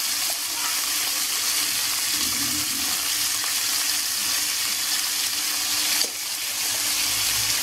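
Squid (calamari) rings sizzling steadily in olive oil in a frying pan. A single click comes about six seconds in.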